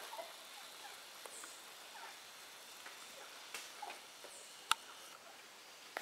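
Rainforest ambience: a steady faint high hiss of insects, with a few short, high, downward-sweeping bird chirps and one sharp click about three-quarters of the way through.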